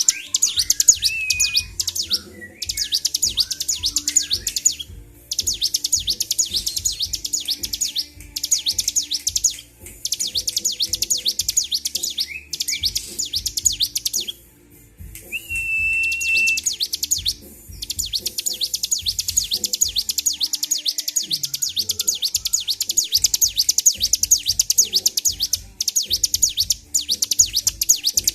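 Ciblek (a prinia) singing nonstop in long runs of rapid, sharp, high chattering notes, broken by short pauses, with a brief clear whistle in the middle. It is the continuous song of a bird in full song and highly aroused.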